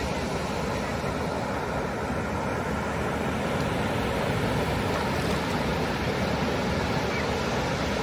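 Atlantic Ocean surf: waves breaking offshore and a wash of foamy water rushing up the beach, the wash hissing in close around the microphone in the second half.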